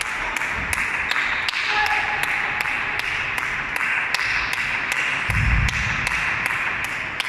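Table tennis ball ticking steadily, about three times a second, against a bat or table, over a steady hiss. A low thump comes about five and a half seconds in.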